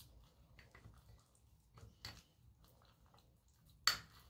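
Faint soft squishing and crumbling as fingertips work soft Kiri cream cheese into ground oats in a small glass bowl, with scattered light ticks and one sharper click near the end.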